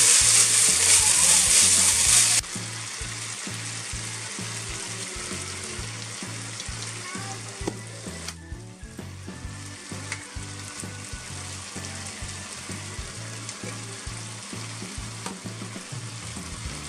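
Carrots, shimeji mushrooms and konjac noodles stir-frying in sesame oil in a frying pan: loud sizzling with chopsticks stirring. After about two seconds it drops suddenly to a softer, steady sizzle with occasional light clicks.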